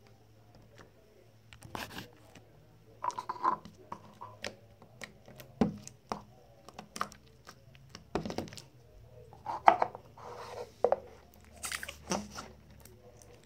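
Hands squishing, stretching and tearing neon slime, with scattered wet pops and clicks at irregular moments. Near the end the green slime is squeezed back into its can, giving a longer squelch.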